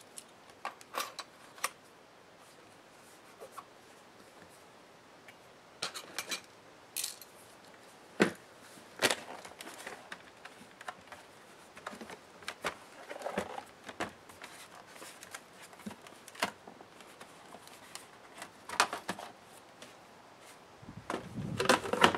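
Irregular plastic clicks and knocks as an Alienware M17x R3 laptop is handled and its plastic bottom cover is taken off, ending in a louder clatter with a few dull knocks as the cover comes away.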